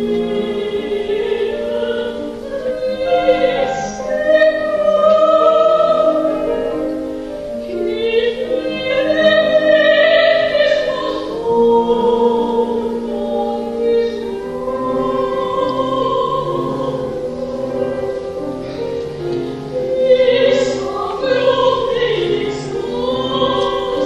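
A soprano singing a French art song with piano accompaniment, in a live recital recording. She holds long notes with a wide vibrato over sustained piano chords.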